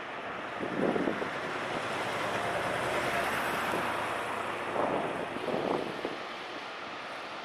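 Steady wind rushing over the microphone outdoors, with a few short louder noises about a second in and again around five and six seconds.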